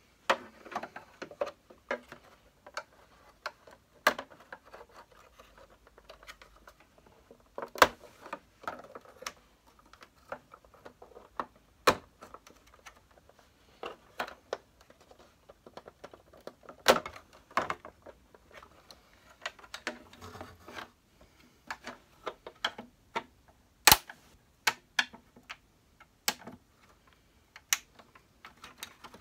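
Irregular clicks, taps and rattles of hard plastic and fittings as a hand tool and fingers work at the wiring and parts inside the opened housing of a Hoover Turbo Power upright vacuum, with a few sharper knocks spread through.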